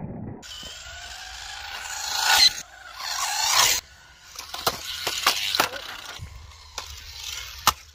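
XRider Flamingo 1/8 RC trike's motor revving up and down as its tyres scrape over concrete, cutting off suddenly about four seconds in, followed by a run of sharp knocks.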